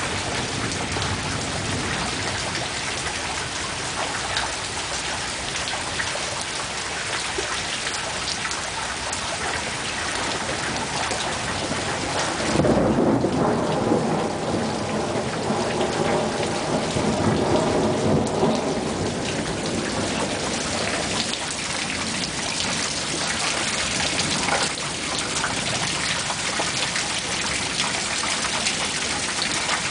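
Steady heavy rain falling, with a clap of thunder about halfway through that rolls on as a rumble for several seconds before fading back under the rain.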